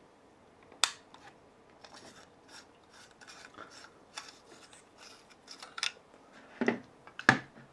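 A sharp click about a second in, then a run of small scrapes and rubs as a spiral compact fluorescent bulb is unscrewed by hand from its lamp socket, with two louder knocks near the end as the bulb is handled.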